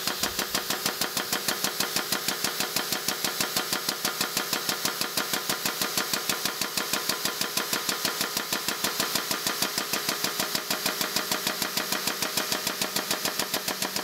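Air-over-hydraulic jack on a shop press pumping, a rapid, even mechanical pulsing that runs steadily, as the ram pushes an old shaft out of a cast-iron flat belt pulley hub under load.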